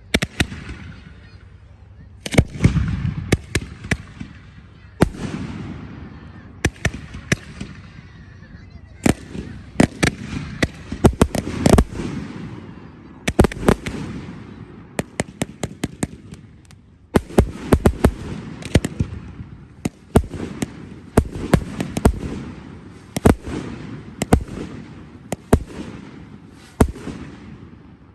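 Fireworks display: dozens of sharp bangs from aerial shells bursting in quick succession, some in rapid clusters, each followed by a fading rumble.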